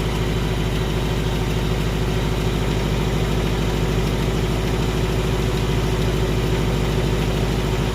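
2018 Ford Mustang GT's 5.0 V8 idling steadily with a fast, even ticking: the 'typewriter' or 'BBQ' tick, an engine fault the owner still has after repairs.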